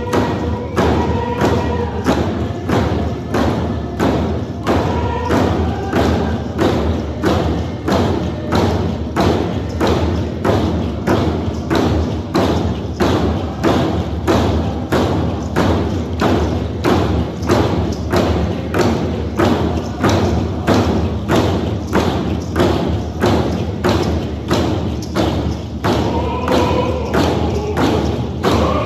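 Coast Salish hand drums beaten together in a steady unison beat, about two strokes a second, accompanying a prayer song. Group singing is heard over the drums at the start and again near the end.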